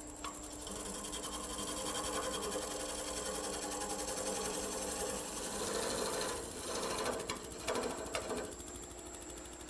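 Wood lathe running at about 600 rpm while a turning chisel cuts a spinning blank of green firewood, a continuous scraping, chip-throwing noise with a fast even chatter. The cut swells louder past the middle and comes in a few sharp surges near the end as the tool is worked along the tool rest.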